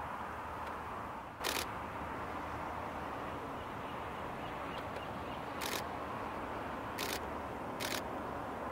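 Camera shutter firing single frames four times: the loudest click about one and a half seconds in, then three more spaced through the second half. A steady background hiss runs underneath.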